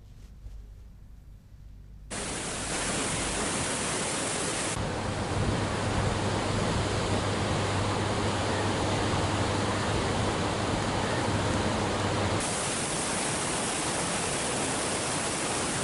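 Floodwater rushing through opened dam spillway gates: a loud, steady rush of water that starts abruptly about two seconds in and changes character sharply twice, as between clips.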